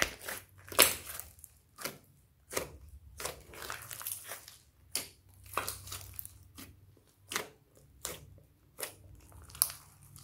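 Hands kneading and squeezing a large mass of slime mixed with clay and Floam beads, making a run of irregular sticky crackles and pops, about one or two a second.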